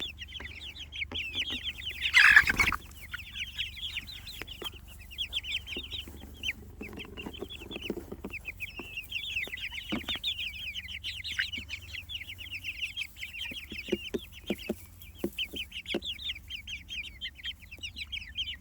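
A flock of young Jersey Giant meat chicks peeping continuously, a dense run of short, high, falling cheeps, with scattered sharp taps. A brief loud noise burst about two seconds in is the loudest sound.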